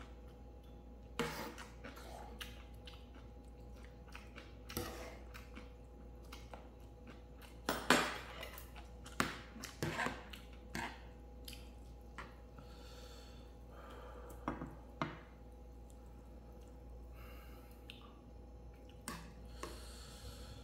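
Pots, bowls and utensils clinking and knocking at irregular intervals, the loudest knock about eight seconds in, over a faint steady hum.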